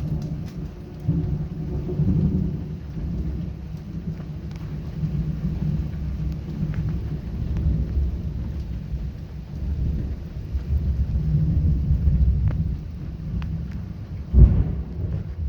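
Thunder rumbling and rolling in a close thunderstorm over steady rain, with a sharp loud thunderclap near the end.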